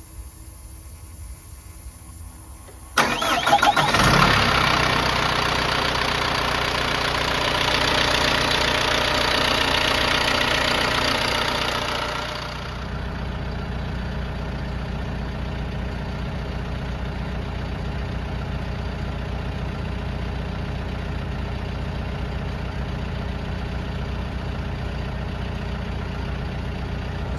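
John Deere 410L backhoe's diesel engine being started: the starter cranks about three seconds in and the engine catches within about a second. It runs at a raised speed, then settles to a steady, lower idle about twelve seconds in.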